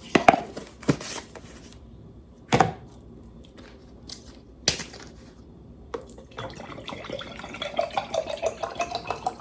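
A few sharp taps and clinks, then water poured into a glass, running for about the last three seconds.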